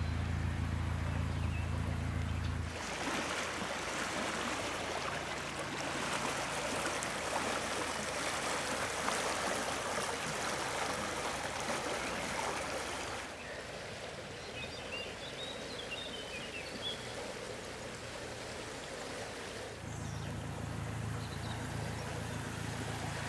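Swollen, fast-flowing floodwater rushing along a stream channel: a steady rush of water that changes in level at cuts about 3, 13 and 20 seconds in.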